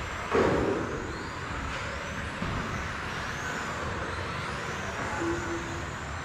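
Electric motors of several Tamiya TT02 radio-controlled touring cars whining, the pitch rising and falling over and over as the cars accelerate and brake. A loud knock about half a second in, and a short steady beep near the end.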